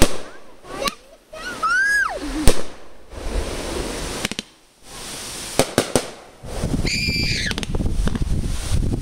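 Fireworks going off close by: sharp bangs, with a whistle that rises then falls about two seconds in, a quick run of cracks about six seconds in, and a high steady whistle near seven seconds, all over a crackling hiss.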